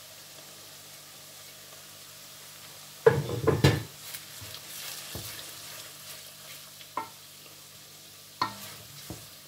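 Oil sizzling faintly in an aluminium pan of frying onions as ground spices are stirred in. About three seconds in, a spoon scrapes and knocks against the pan for about a second, and a few single spoon taps follow later.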